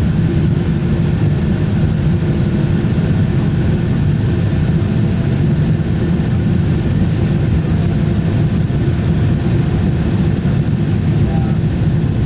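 Airliner cabin noise: a steady low rumble with faint steady hums above it, unchanging throughout.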